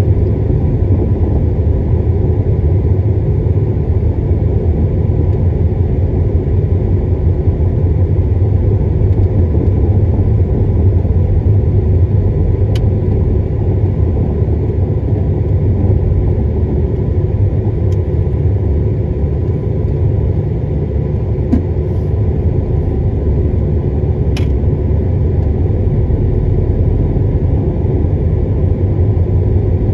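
Steady low rumble of a car driving, engine and tyre noise heard from inside the cabin, with a few faint clicks along the way.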